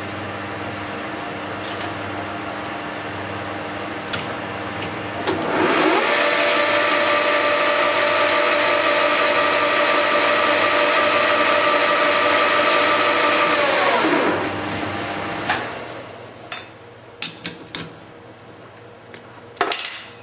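Lathe spindle spinning up with a rising whine about five seconds in, running steadily and loudly for about eight seconds while the sharp edges of a stainless steel part are taken off by hand, then winding down. A few short clicks and knocks follow.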